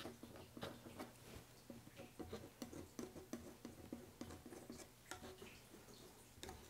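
Faint scraping and light irregular ticks of a hand-held scraper spreading cold wax and oil paint across a painting panel, over a low steady hum.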